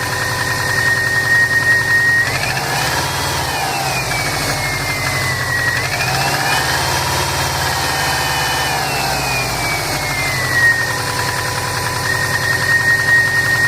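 2005 Saab 9-2X Aero's turbocharged 2.0-litre flat-four running with a rhythmic knocking, which the owner suspects is piston slap on a cold start. It idles, is revved up twice (a short rise and fall a couple of seconds in, then a longer one held for a few seconds), and settles back to idle near the end.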